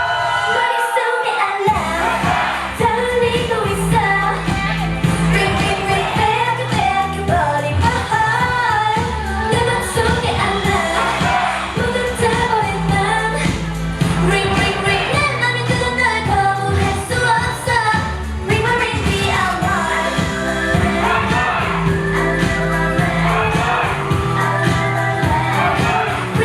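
K-pop song with female voices singing over a steady electronic beat. The bass drops out for about a second and a half near the start, then comes back in.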